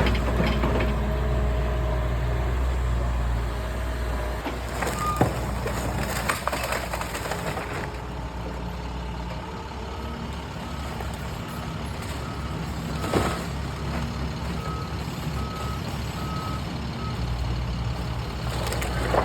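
Excavator's diesel engine running under load while its grab tears into a house, with sharp cracks and crashes of breaking material, the loudest about five seconds in and again about thirteen seconds in. A travel alarm beeps evenly, about one beep a second, for several seconds in the second half.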